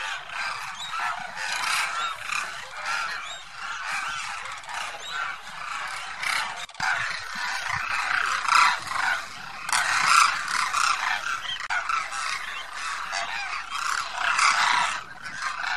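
A flock of demoiselle cranes calling, with many short calls overlapping without a break.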